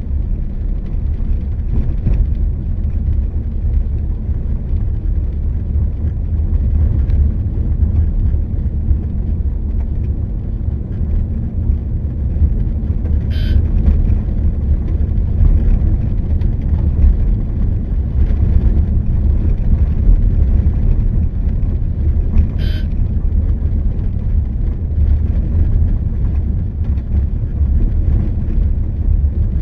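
Steady, loud low rumble of road travel, with wind and engine noise from a moving vehicle. Two short horn toots come through, one a little before halfway and one about three quarters of the way in.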